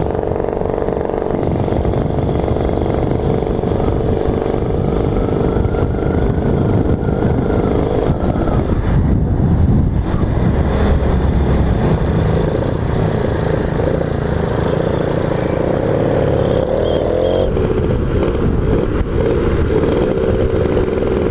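Suzuki Tornado GS motorcycle's two-stroke engine running steadily under load while being ridden at speed, its pitch shifting about 8 seconds in and again near the end, with heavy wind rumble on the microphone. The rider suspects it is running short of fuel at high revs.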